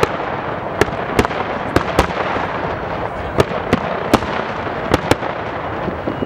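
Fireworks display with aerial shells bursting: about ten sharp bangs come at an irregular pace, over a continuous dense crackle.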